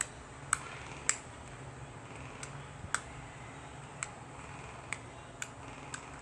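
A series of sharp, isolated clicks, about seven, at uneven intervals over a faint steady hum.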